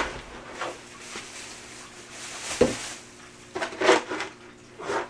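A plastic scoop digging and sifting through cat litter in a plastic litter box: gritty scrapes and rattling of the litter grains, with a few sharper knocks of the scoop against the box, the loudest about two and a half seconds in.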